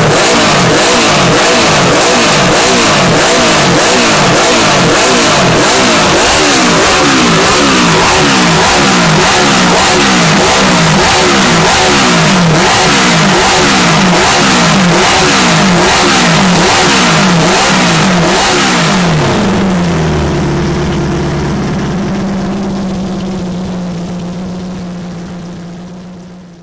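Honda CB350 Four racer's air-cooled inline-four engine revved over and over, each rev a quick rise in pitch that drops off sharply, about three every two seconds. About nineteen seconds in it settles to a steady lower note and fades away.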